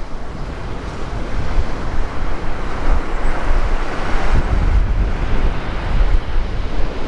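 Wind buffeting the microphone in heavy, gusting rumbles, over the rushing hiss of surf breaking on a sandy beach. The surf swells louder a few seconds in as a wave breaks.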